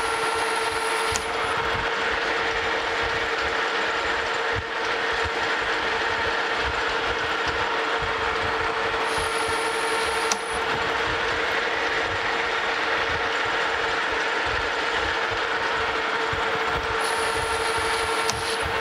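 Metal lathe running under cut, a carbide insert turning down a step on the outside of a metal bushing ring: a steady machine drone with a hum. A thin high whine comes in three times, for a second or so each.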